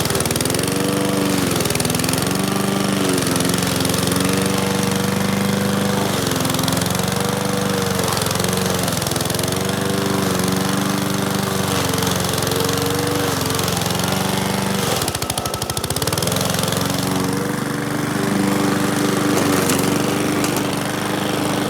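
Powersmart gas push lawn mower engine running under heavy load in thick, overgrown grass, its pitch repeatedly sagging and picking back up as it bogs. About fifteen seconds in it briefly lugs with a pulsing beat before recovering. The bogging is the sign of the deck clogging with tall grass, which has already stalled the engine twice.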